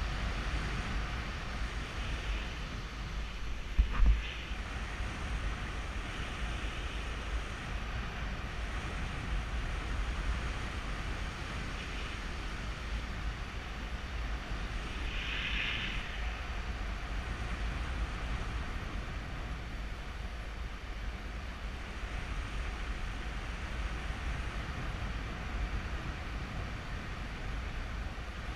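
Wind buffeting the GoPro Hero3's microphone in flight under a paraglider, a steady low rumble. About four seconds in there is one short, loud knock.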